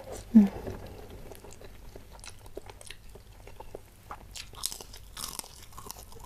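Close-miked chewing and wet mouth sounds of someone eating sambal-coated quail eggs by hand, with light crunching and many small quick clicks. There is one short, loud, low sound about half a second in.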